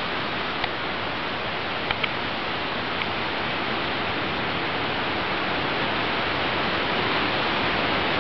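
A steady, even hiss with a few faint clicks in the first three seconds.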